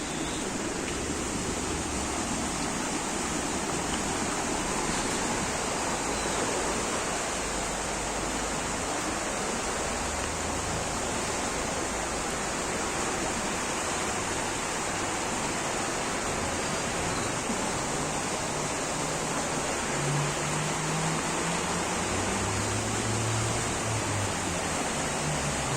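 Heavy water rushing steadily and evenly, without the rise and fall of breaking waves. A faint low hum comes in near the end.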